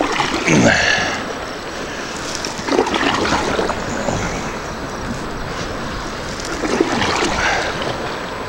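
Water moving around a paddled wooden dugout canoe, with wind on the microphone, and a few short vocal sounds coming and going.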